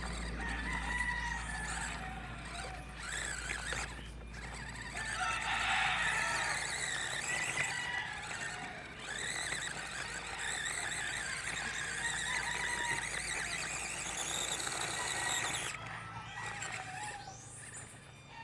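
Axial SCX24 micro rock crawler's small electric motor and gearbox whining under throttle as it crawls, the pitch wavering with the load. It cuts out briefly twice and stops a few seconds before the end.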